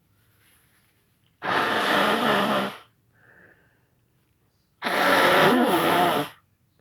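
A person blowing his nose hard into a tissue: two long blows of about a second and a half each, the second with a pitched tone in it, with a short faint sniff between them. The nose is clearing after a bout of sneezing brought on by sneezing powder.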